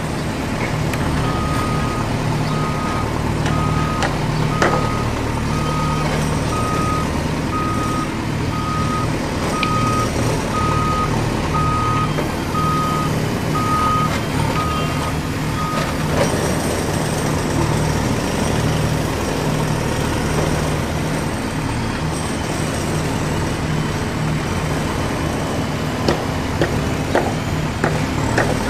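Battery-operated toy excavator's electronic sound effects: a reversing-style beep repeating about every three-quarters of a second, over a steady low engine-like rumble. The beeping stops about 16 seconds in while the rumble carries on.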